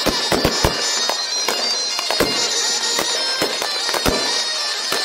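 Fireworks going off: a rapid, irregular run of sharp bangs and crackles over a continuous high-pitched hissing whistle.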